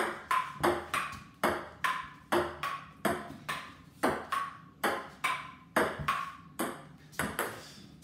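Ping-pong ball in a long rally, clicking back and forth off the paddles and a wooden dining table, about two to three hits a second. Many of the hits leave a short ring.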